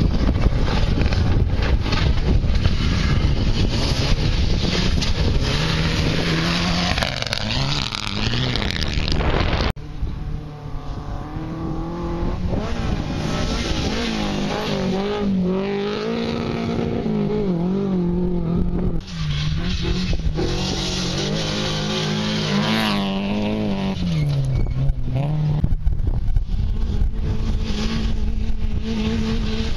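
Rally cars running flat out on a gravel sprint course: engines revving hard, the pitch climbing and dropping again and again through gear changes, with gravel noise under them. The first few seconds are mostly wind noise on the microphone over a distant engine.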